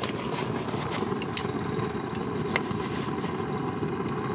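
Tongs and a knife clicking lightly a few times against steak on a wooden board, over a steady low rumbling hum.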